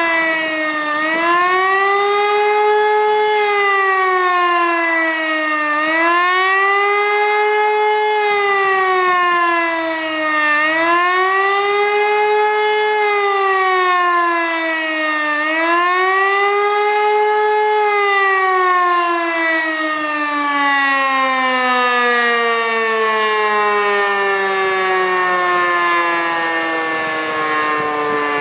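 Civil defence siren sounding the rising and falling howl of the 'Bevölkerungswarnung' public warning signal, dipping in pitch and swinging back up about every five seconds. About two-thirds of the way through it stops cycling and its pitch slides steadily down as the signal winds down.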